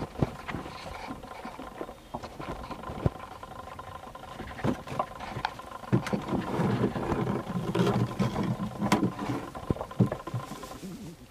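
Sheep jostling in a stable: scattered knocks, clicks and rustling from hooves on the dirt floor and bodies pushing against one another, busiest in the middle. A faint steady hum runs underneath and stops just before the end.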